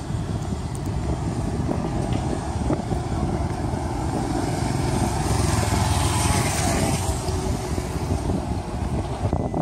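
Road traffic with motorcycles passing on the road beside the pavement, one swelling louder and fading away about five to seven seconds in, over a steady low rumble.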